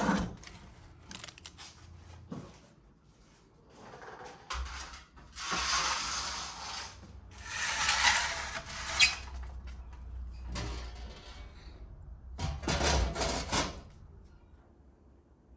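Metal pan scraping and clattering on the brick floor of a wood-fired oven, with a sharp knock about nine seconds in. Near the end, the oven's metal door scrapes and knocks into place over the opening.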